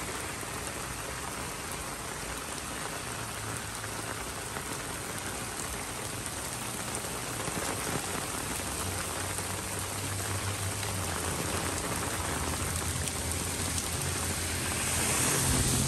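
Heavy rain pouring onto an asphalt street and concrete sidewalk, a steady dense hiss that grows louder near the end.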